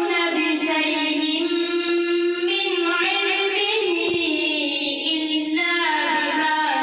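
A boy's voice reciting the Quran in melodic tilawat style, drawing out long held notes with ornamented turns between them; a new phrase begins about five and a half seconds in.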